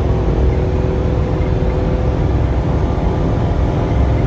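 Dacia car heard from inside the cabin while driving at speed: steady engine drone with low road and tyre rumble.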